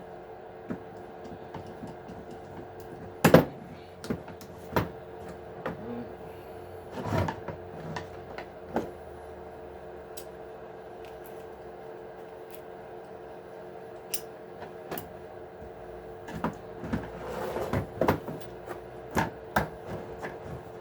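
Irregular clicks and knocks of small plastic and metal parts and tools being handled while an Axial SMT10 RC truck is taken apart, the loudest about three seconds in and a cluster near the end, over a steady background hum.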